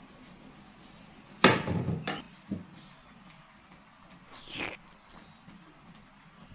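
A large papaya being handled on a woven bamboo tray as it is cut: a sudden loud knock about one and a half seconds in, a few smaller knocks after it, then a short scraping hiss a little past four seconds.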